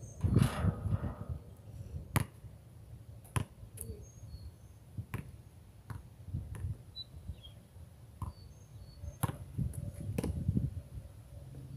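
A basketball bouncing on asphalt: single sharp bounces a second or more apart. Just after the start a shot hits the rim with a louder hit and a short ringing tail. Birds chirp faintly, and there is a low wind rumble on the microphone.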